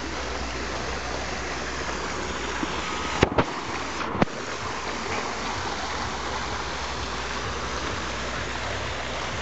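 Water spilling steadily from a wall fountain's spout into a stone basin, a continuous splashing rush. Two brief clicks cut in a little after three seconds and again after four seconds.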